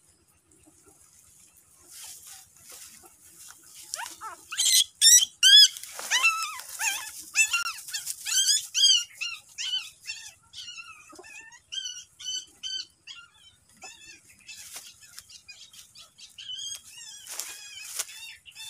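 Newborn puppies crying: a rapid series of short, high-pitched squeals, loudest about five seconds in, then thinning to scattered whimpers.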